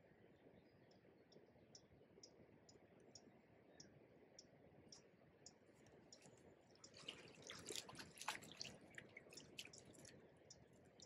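Faint, regular ticking about three times a second, then a hooked barbel splashing and thrashing at the surface as it is drawn into the landing net, loudest from about seven to nine seconds in.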